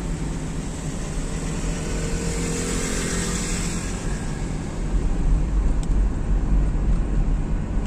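Steady road and engine noise heard from inside a moving car. A swell of hiss peaks about three seconds in, and the low rumble grows louder from about five seconds.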